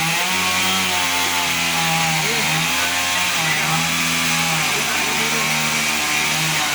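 Two-stroke chainsaw running at high revs through a tree-cutting job. The engine note dips and climbs back a few times.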